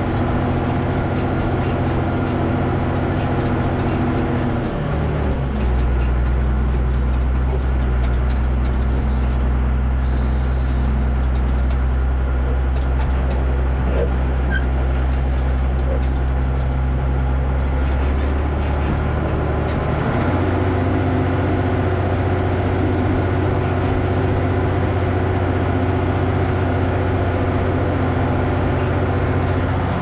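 Tractor engine running steadily. Its note changes about five seconds in and changes back about twenty seconds in.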